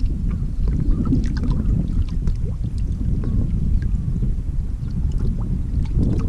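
Wind rumbling on the microphone of a GoPro aboard a bass boat on open water, with scattered small ticks and splashes over it.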